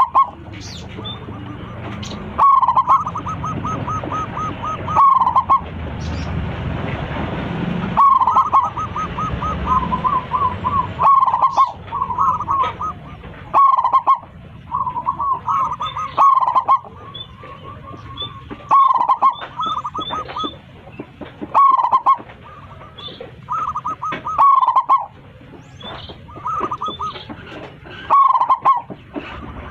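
Zebra dove (perkutut) singing: loud, regularly repeated phrases, one every two to three seconds, each a quick stuttering run of short notes ending in a louder coo. A steady background noise runs under the first third.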